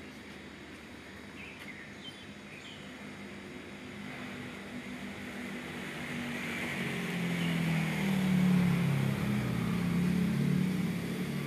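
Outdoor background noise with a low motor hum that swells to its loudest about eight seconds in and then eases off a little, like a motor passing by.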